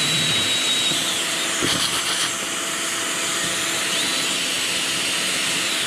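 Cordless drill boring a 35 mm hinge cup hole in MDF with a Forstner bit, over the steady running of a dust extractor. A high whine drops away about a second in and returns about four seconds in.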